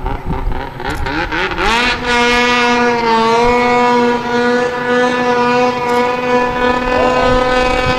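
Snowmobile engine revving in short pulses, then revving up sharply about two seconds in and holding high revs steadily as the sled runs across open water.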